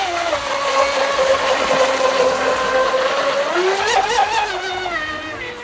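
Radio-controlled offshore racing boat running flat out across the water, its motor giving a high, steady whine. The pitch wavers and climbs briefly about four seconds in, then the sound fades as the boat pulls away near the end.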